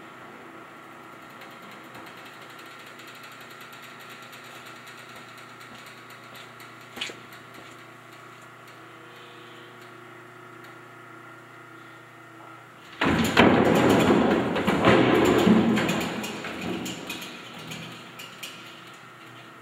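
Large plywood-panel Jacob's ladder flipping over. Its strapped wooden panels tumble down over one another in a loud clattering cascade about two-thirds of the way in, which dies away over a few seconds. A steady low hum runs underneath, with a single click a little before the cascade.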